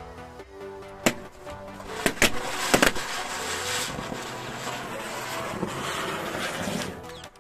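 A chakri ground-spinner firework spinning and hissing after it is lit, with balloons around it popping in about four sharp bangs between one and three seconds in. The hiss stops abruptly near the end.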